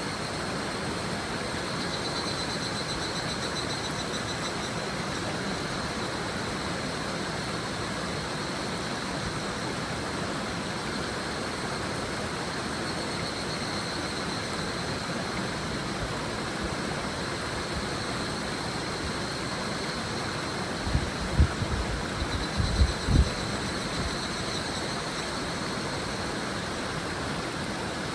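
A river babbling steadily over its bed, with higurashi (evening cicadas) calling in a high ringing chorus that swells and fades several times. A few short low thumps come about two-thirds of the way through.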